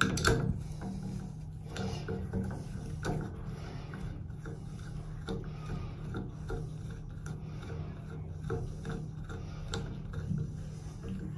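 A screwdriver tightening the screw that holds a clear acrylic Delta shower handle onto the valve stem: irregular small scrapes and clicks of the driver tip turning in the screw head.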